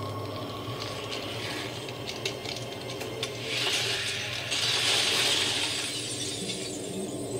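Cracking and shattering sound effect from a Halloween freezer prop's soundtrack, played through a speaker: a few sharp clicks, then a loud hissing crackle lasting about three seconds as the frozen figure's face breaks apart.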